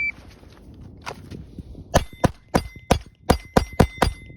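Shot-timer start beep, a couple of faint clicks, then about two seconds later eight quick handgun shots fired in a rapid string.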